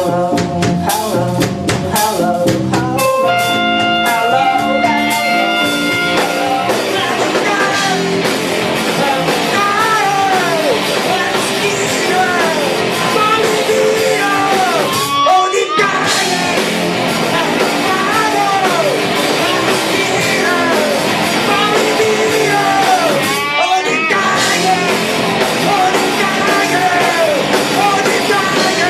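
Punk rock band playing live: electric guitar and drum kit, with a singer coming in about eight seconds in. The music drops out briefly twice.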